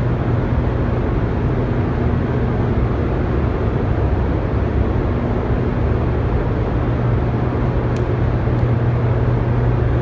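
Hoover Dam's hydroelectric generator units running in the powerhouse hall: a steady, deep hum.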